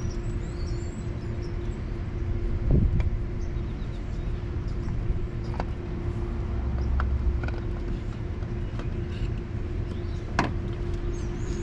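A few knocks and clicks of hand work on the vehicle, the loudest a dull thump about three seconds in and a sharp click near the end, over a steady low hum.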